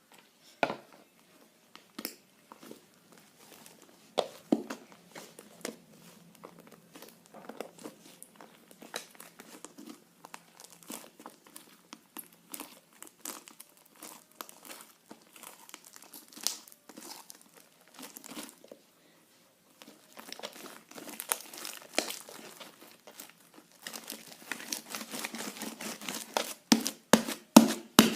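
Butter slime being worked as glue is mixed in, giving irregular sticky clicks, pops and crackles, faster and louder near the end.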